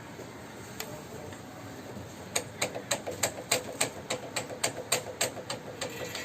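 A rapid run of light metallic clicks, about five a second, starting about two seconds in and stopping near the end.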